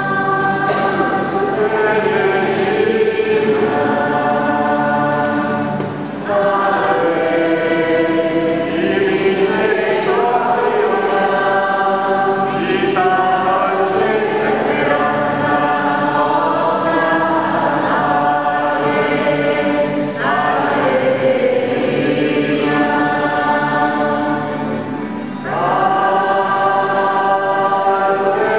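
Choir singing a hymn in long sustained phrases, with brief breaths between phrases about six seconds in, about twenty seconds in and near the end.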